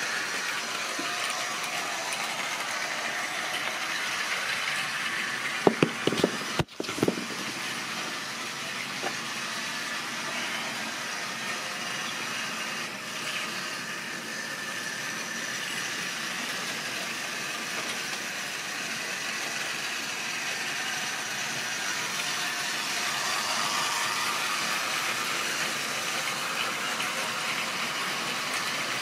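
Model railway locomotive and wagons running on sectional track: a steady rattle and hum of motor and wheels. A short cluster of loud knocks about six seconds in.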